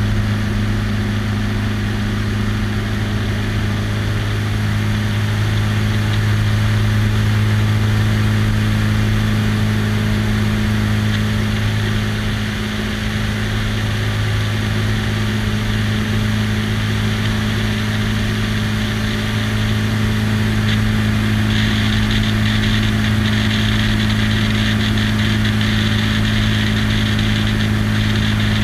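Single-engine biplane's piston engine and propeller in cruising flight, a steady, unchanging drone, with airflow hiss over the wing-mounted microphone that grows a little stronger about three quarters of the way through.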